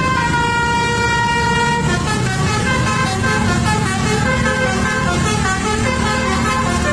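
Bus 'telolet' musical horn of the basuri type playing a tune: one note held for about two seconds, then a quick run of changing notes, over the steady rumble of the bus engine.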